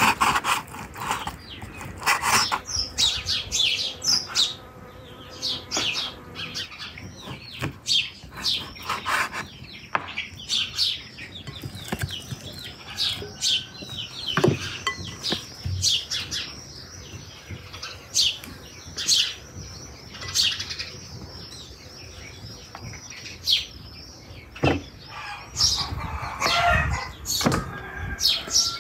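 Small birds chirping over and over, mixed with the knocks of a kitchen knife cutting raw lamb on a wooden chopping board.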